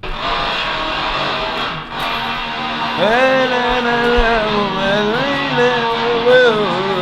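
Loud, heavily distorted electric guitar played through effects pedals, starting suddenly as a dense noisy wall of sound; about three seconds in a wavering, bending pitched line comes in over it.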